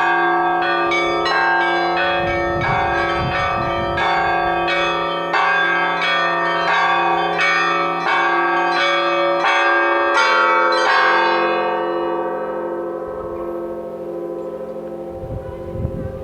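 Russian church bells rung in quick succession, small bells striking over the steady hum of the larger bells. The strokes stop about eleven seconds in, and the bells ring on and slowly fade.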